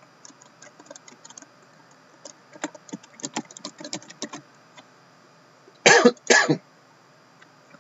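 Typing on a Lenovo laptop keyboard: a run of quick key clicks in short clusters, then two loud coughs about six seconds in.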